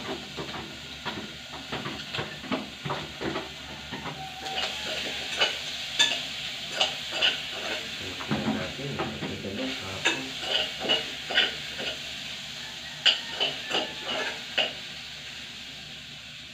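A metal spoon scraping and clinking irregularly against a stainless steel pot and a plastic tub as cooked food is scraped into the hot pot and stirred, over a steady sizzle of frying.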